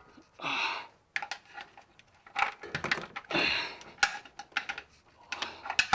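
Metal brake parts and hand tools being handled: a run of clicks, clinks and knocks, with two short rasping noises, one near the start and one about three seconds in.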